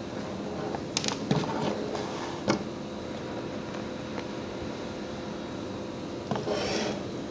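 A plug, cord and plastic lamp being handled and set down on a wooden table: a few sharp knocks in the first few seconds and a brief rustle near the end, over a steady low electrical hum.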